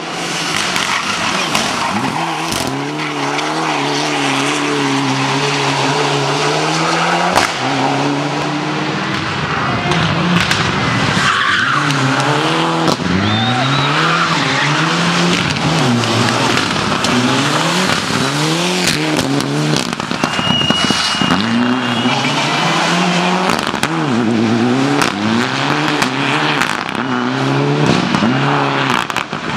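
Mitsubishi Lancer Evolution rally car's turbocharged four-cylinder engine revving hard in several passes, the revs climbing and dropping through gear changes, with tyre squeal and sharp pops.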